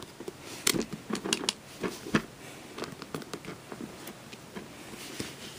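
Cardboard DVD box-set case being handled and fiddled with: irregular taps, scrapes and rustles as someone tries to work out how to open it.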